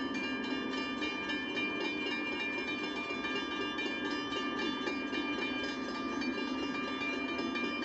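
Railroad grade-crossing warning bell ringing in rapid, even strokes with a steady ringing tone, over a steady low noise.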